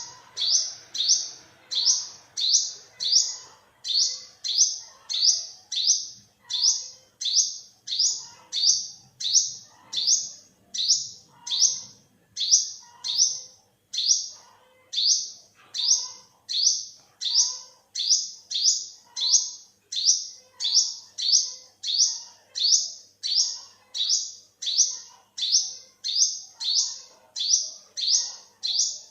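Olive-backed sunbird calling over and over: a sharp, high note that falls in pitch, repeated at an even pace of about three every two seconds.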